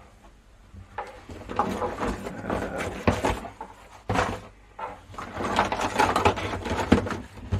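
A plastic retro joystick being handled and its stick moved about, giving irregular clicks, knocks and rubbing.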